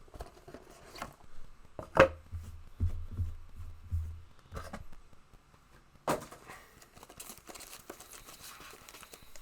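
Trading cards and pack wrappers being handled on a table: scattered taps, rustles and a few sharp clicks, the loudest about two seconds in, with dull low thumps between about two and five seconds.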